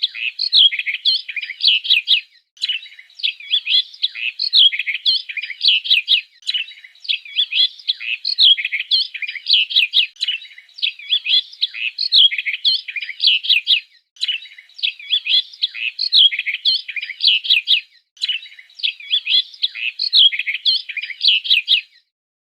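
Birds chirping in bursts of rapid high chirps, one burst about every four seconds, cutting off abruptly just before the end.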